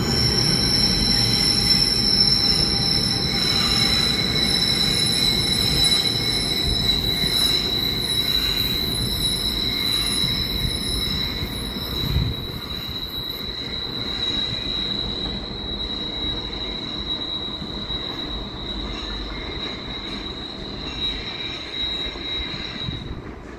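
Freight cars of an Amtrak work train rolling past with a steady, high-pitched wheel squeal over a low rumble; the rumble fades as the train moves away, and the squeal stops shortly before the end.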